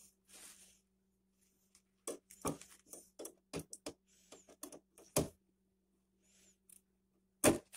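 Handling noises while a fabric sheet is fastened to a plastic toddler-bed frame: soft rustles of the sheet and a scatter of small clicks and taps, with one sharper click near the end.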